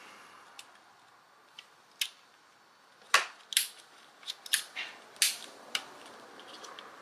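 Sharp clicks and light taps of the Maschine Mk3 controller's parts being handled and fitted back together during reassembly, about a dozen in all, most of them between three and six seconds in.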